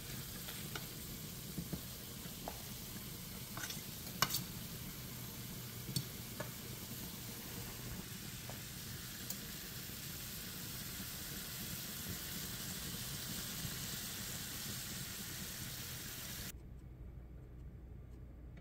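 Ackee and saltfish with onions and peppers sizzling in a frying pan, with a metal fork stirring and clicking against the pan a few times in the first several seconds. The sizzling cuts off suddenly near the end.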